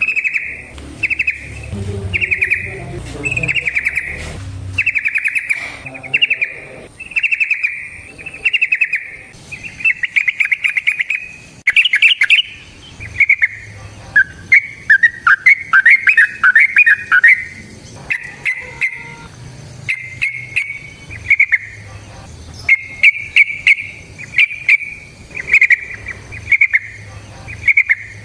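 Yellow-vented bulbul (trucukan) singing a run of short, bubbling phrases, about one a second, with a more varied warbling stretch about halfway through.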